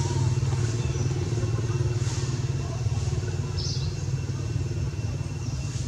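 An engine idling steadily nearby, a continuous low rumble. A few brief, soft hissy sounds come through over it about two seconds in and again a second and a half later.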